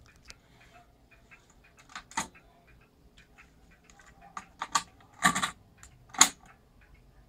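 Sony TC-K65 cassette deck being loaded: a clunk as the eject opens the cassette door about two seconds in, a cluster of clicks and rattles as a cassette is pushed into the holder, then a sharp click as the door is snapped shut about six seconds in.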